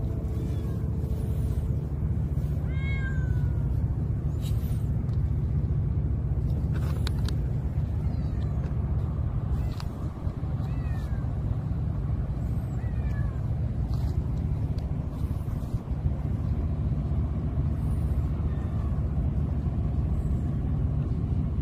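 Stray cats meowing several times in short calls that fall in pitch, the clearest about three seconds in, over a steady low rumble.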